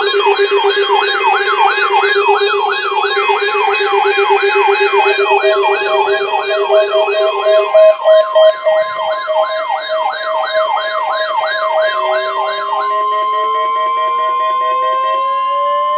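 Electronic siren tones layered together: a fast yelp sweeping up and down about twice a second over steady lower tones. About halfway through, a steady high alarm tone comes in and holds to the end. Near the end, a tone slowly rises in pitch.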